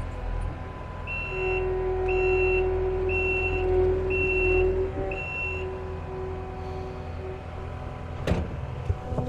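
Kubota SSV75 skid steer's diesel engine running while its backup alarm beeps five times, about once a second, as the machine reverses. A sharp knock comes near the end.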